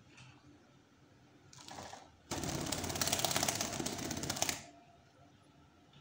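Fischer's lovebird flapping its wings in a fast flutter: a short rustle about a second and a half in, then a loud, rapid fluttering rattle for about two seconds that stops suddenly.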